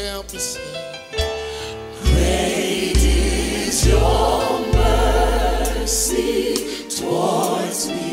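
Gospel music: a choir singing over a deep bass line, the voices coming in strongly about two seconds in.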